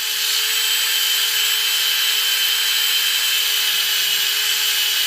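Angle grinder running steadily, grinding down welds along the edge of a sheet-metal body panel.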